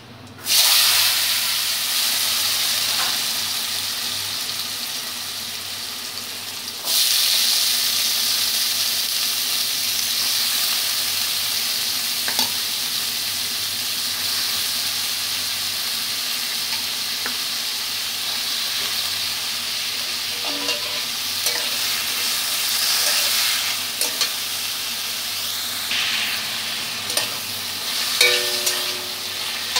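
Raw julienned potatoes dropped into hot mustard oil in a kadai, setting off a loud frying sizzle at once that steps up again about seven seconds in as a second batch goes in. The sizzle then runs on steadily, with clicks and scrapes of a metal spatula stirring the potatoes near the end.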